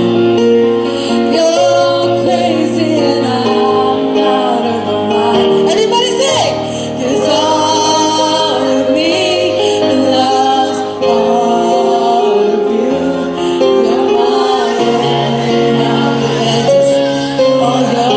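A woman singing a slow melody into a handheld microphone, amplified through a small busker's speaker over an instrumental backing track with sustained bass notes and chords.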